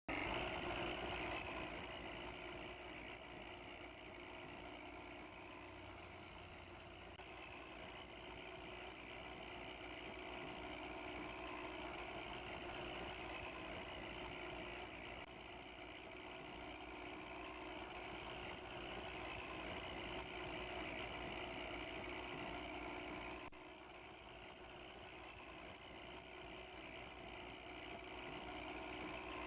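Bus diesel engine running steadily with a rough, growling 'ngorok' note; the level drops suddenly about 23 seconds in.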